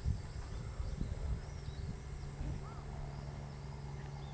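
Outdoor ambience: faint short bird chirps over uneven low rumbling on the microphone, with a steady low hum setting in about halfway through.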